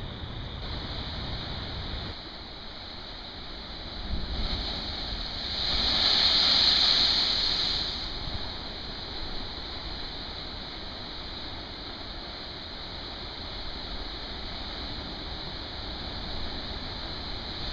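Heavy sea surf breaking and washing over rocky shoreline ledges. It is a continuous rushing wash that swells loudest about five to eight seconds in as a big wave breaks. Wind rumbles on the microphone in the first couple of seconds.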